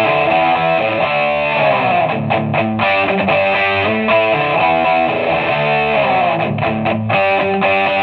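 Gibson SG electric guitar played through Marshall DSL40C valve combo amps with overdrive: distorted chords and riffs, with the chords changing every half second or so.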